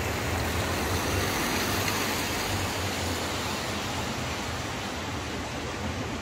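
Steady rushing outdoor noise with no distinct events, typical of a city street at night.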